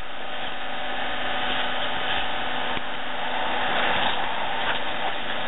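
Vertical log splitter's motor running steadily with an even hum while the ram is not splitting.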